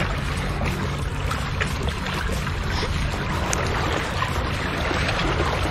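Steady rushing of wind and lapping sea water at the shore, with faint light ticks scattered through it.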